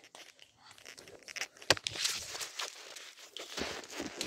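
Rustling and crinkling handling noise with scattered clicks and taps, one sharper click about a second and a half in.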